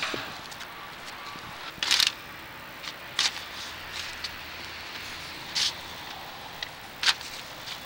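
Short scraping and rustling noises, about four in all, over a steady hiss, as a sewer inspection camera's push cable is fed into a pipe.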